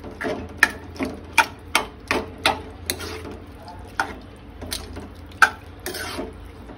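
A metal spoon knocks and scrapes against a metal pan while stirring chunky cooking vegetables. The clinks come quick and regular, about two or three a second, for the first three seconds, then more sparsely.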